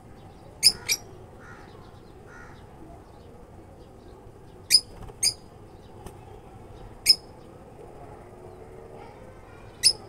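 Lovebirds giving short, sharp, high-pitched chirps: a quick pair near the start, another pair about five seconds in, one about seven seconds in and one near the end.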